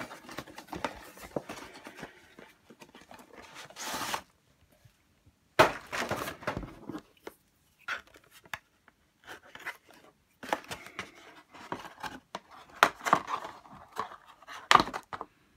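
Cardboard doll box and its plastic packaging being handled and pulled apart, in intermittent rustles and scrapes with short pauses between. Near the end, small scissors snip at the fastenings that hold the doll to the cardboard backing, in sharp clicks.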